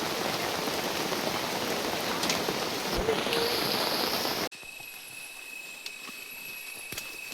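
Steady loud hiss of rushing water or rain that cuts off abruptly about four and a half seconds in. A quieter rainforest insect chorus follows, made of steady high-pitched drones, with a couple of faint clicks.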